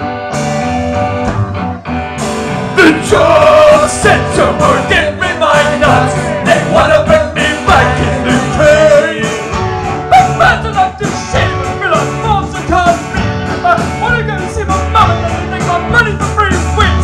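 A live band playing a rock song: a male voice singing over electric guitars, bass and drums.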